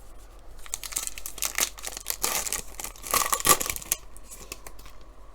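Crinkling and rustling of trading-card packs and cards being handled, with rapid scraping rustles strongest between about one and four seconds in.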